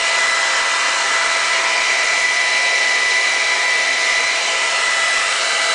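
Hand-held hair dryer running steadily, a rush of blowing air with a steady high whine.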